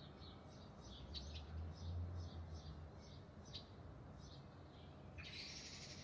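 Small songbirds calling: a short high note repeated two or three times a second, then a louder burst of dense high twittering in the last second. A faint low rumble sits underneath.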